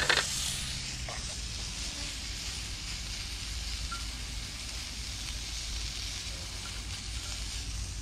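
A thick piece of snook frying in hot oil in a wok, a steady sizzle, with a short knock right at the start.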